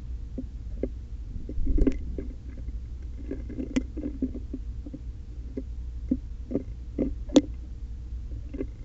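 Sparrows pecking and hopping at a feeding spot: irregular light taps and clicks, two sharper ones about four and seven seconds in, over a steady low rumble.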